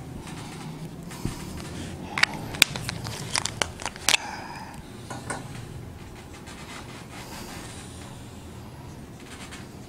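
Felt-tip marker squeaking and scraping on a whiteboard in short strokes while lines are drawn, most of them between about two and four and a half seconds in.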